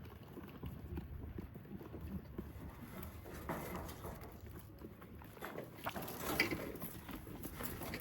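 Goats moving about and feeding, with scattered short knocks and shuffling that grow busier in the second half.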